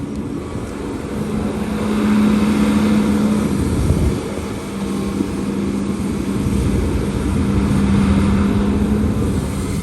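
Heavy construction machine's diesel engine running with a steady hum over a low rumble. It swells twice under load, easing briefly around four seconds in.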